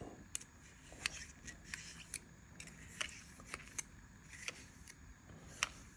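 Faint, irregular clicks and light scraping of small metal gun parts being handled as the inside of a revolver cylinder's chambers is oiled and wiped.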